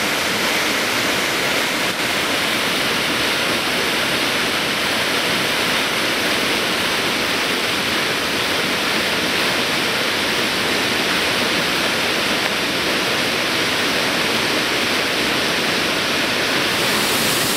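Waterfall rushing: a loud, steady roar of falling water that does not change.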